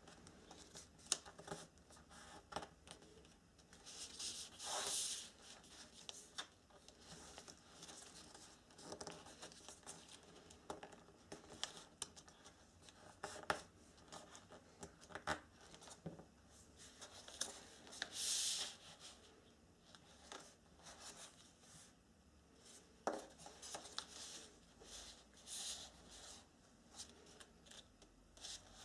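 Sheets of origami paper being folded and creased by hand: faint scattered crisp rustles, scrapes and taps, with a few longer high swishes of paper sliding.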